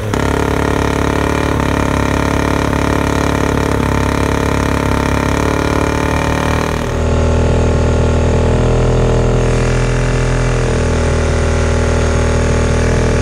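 Two-stroke outboard motor running steadily on a flushing hose, burning a fuel mix treated with Sea Foam to clean out its carburetors and fuel injectors.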